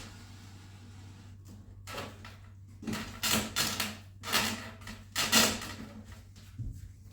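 Foam and plastic airframe parts rubbing and squeaking in about five short scrapes as a wing panel is pushed onto an RC biplane's fuselage on a foam stand.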